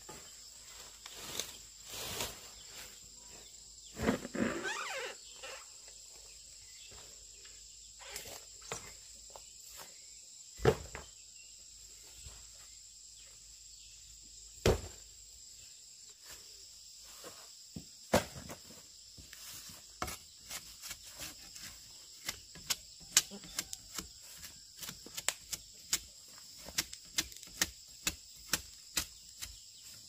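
Insects calling in a steady high drone, with scattered sharp knocks that come more often, about one or two a second, in the second half.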